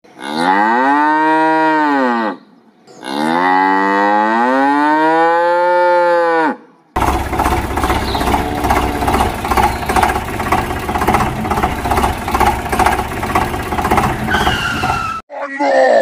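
Two long cow moos, each rising then falling in pitch, with a short pause between them. They are followed by about eight seconds of steady rattling noise, and another moo begins near the end.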